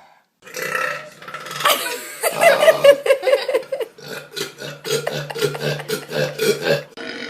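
A person belching loudly, one long drawn-out burp that wavers in pitch and breaks into a rapid stutter of pulses in its second half.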